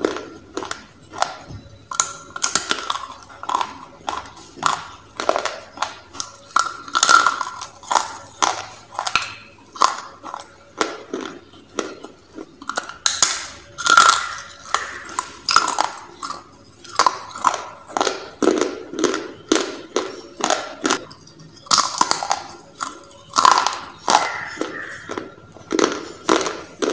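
Close crunching of dry clay roll being bitten and chewed, sharp crunches coming about two a second.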